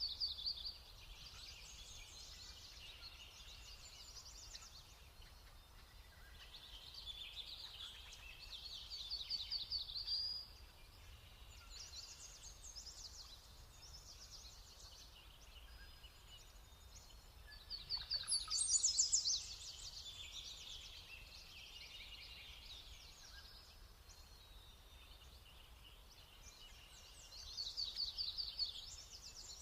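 A flock of songbirds calling, many rapid high trills overlapping in clusters, loudest a little past halfway and again near the end.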